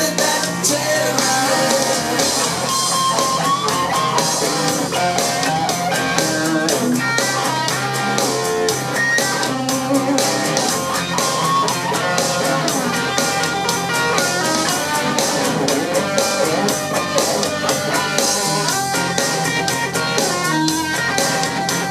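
Rock music with guitars and a drum kit at a steady beat, played back through a Klein & Hummel Telewatt VS 56 tube amplifier and DIY loudspeakers.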